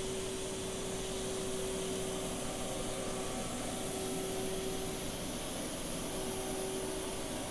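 Haas EC-400 horizontal machining center running: a steady mid-pitched whine over a constant hiss. The whine dips briefly twice, once about three and a half seconds in and once around six seconds.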